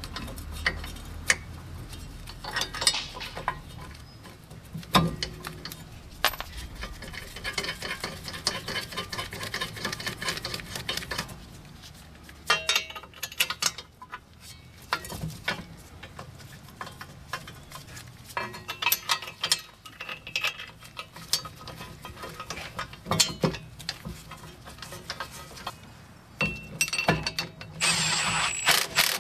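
Scattered metal clinks, taps and knocks as a new wheel hub and bearing assembly is worked onto the steering knuckle and its bolts are handled and threaded in, with a busier stretch of metallic clinking near the end.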